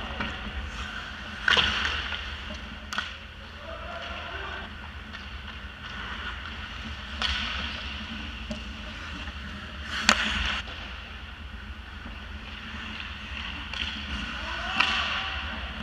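Ice hockey play heard from behind the goal: skate blades scraping the ice, with sharp clacks of sticks and puck, the loudest about ten seconds in, and faint shouts of players.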